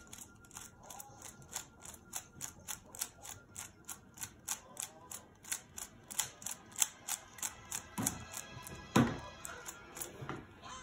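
GAN 11 Air 3x3 speed cube being turned quickly by hand, its layers clicking at about four turns a second. A louder thump about nine seconds in.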